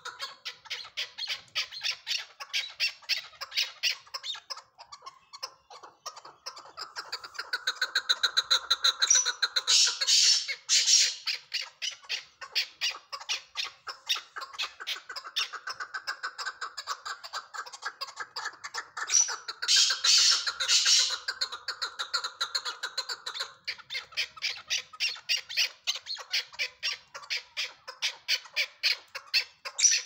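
Chukar partridge calling: a long run of rapid, repeated clucking notes, growing louder and harsher in two stretches about ten and twenty seconds in.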